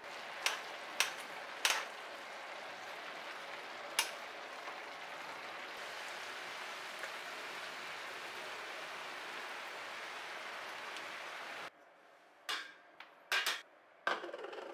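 Sliced meat and cabbage sizzling in a frying pan, with a few sharp clicks of metal tongs against the pan in the first few seconds. The sizzle cuts off suddenly near the end, followed by a few light knocks of ceramic bowls being handled.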